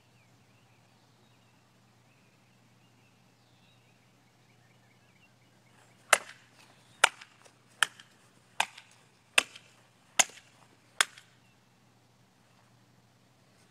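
Sword blade slicing through a dry bamboo pole seven times in quick succession, about one sharp crack every 0.8 seconds. Each cut is a diagonal stroke, and each crack is followed by a smaller tick.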